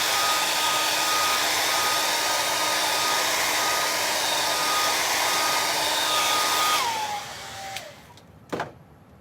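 Handheld blow dryer drying wet paint, running with a steady rush of air and a steady whine, then switched off about seven seconds in, its whine falling as it winds down. A single click follows near the end.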